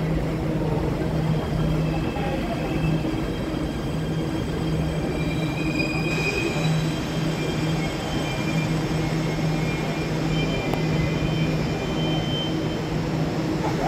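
MRT Jakarta 1000 Series electric metro train running slowly along the platform as it comes to a stop. A steady low rumble and hum, with faint high whining tones that come and go.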